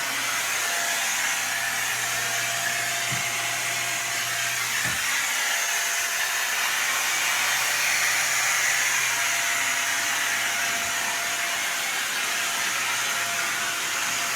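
Vacuum cleaner running steadily, a loud rushing of air with a constant motor whine and low hum, with a couple of faint knocks a few seconds in.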